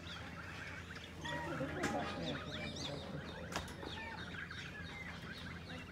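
Canada goose goslings peeping: many short, high chirps overlapping from several chicks at once, with two sharp clicks about two and three and a half seconds in.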